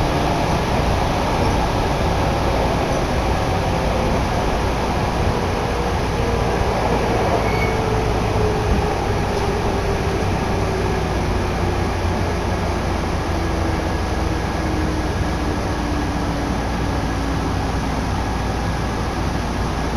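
Chichibu Railway electric train running, heard from inside the carriage: a steady rumble of wheels and running gear, with a whine that slowly falls in pitch as the train slows.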